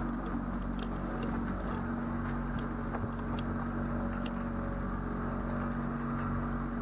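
A boat's motor running steadily, a low even hum that starts abruptly just before the cut into this shot and holds without change.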